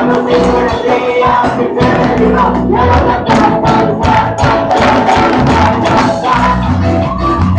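Christian worship music: a band with a steady drum beat and voices singing.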